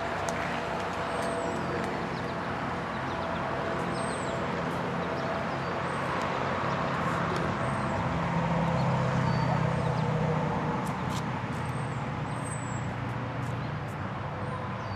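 Steady outdoor background noise with a low motor-vehicle rumble that swells about eight to ten seconds in, and short high bird chirps repeating over it.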